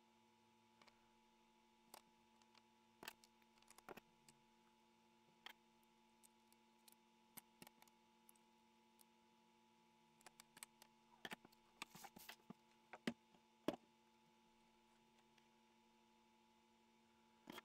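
Faint clicks and taps of small plastic miniature chairs and a table being handled and set down on a tabletop, over a steady electrical hum. The taps come scattered, then in a quicker, louder cluster in the second half.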